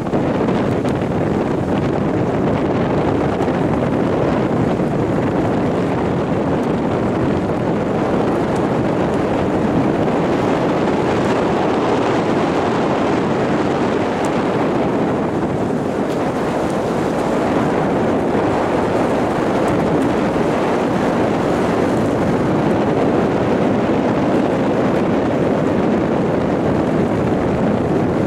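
Steady rushing noise of a motor launch running alongside a single scull, mixed with wind on the microphone.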